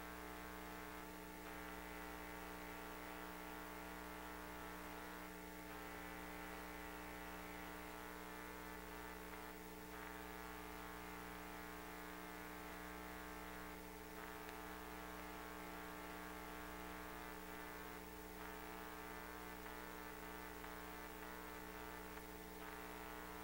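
Faint, steady electrical hum with many even overtones, from the pipe-inspection camera rig's audio line, with a slight soft pulse about every four seconds.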